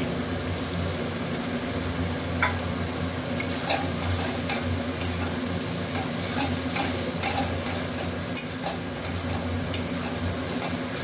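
Chopped tomatoes and onion-spice paste sizzling in hot oil in a metal kadai while a metal spatula stirs and scrapes through them, with occasional sharp clicks of the spatula against the pan.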